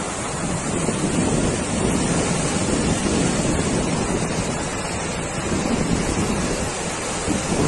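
Flash-flood water rushing through a wadi, a loud, steady noise of churning water, with wind buffeting the microphone.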